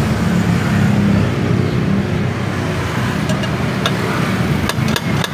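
A steady low machine hum, joined from about three seconds in by a few sharp, light metal taps. The taps come as a welded rod is worked to knock a stuck inner bearing out of a scooter's final-drive case.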